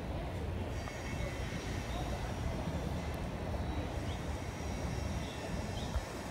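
Steady low rumble of city street traffic, with faint high-pitched tones above it.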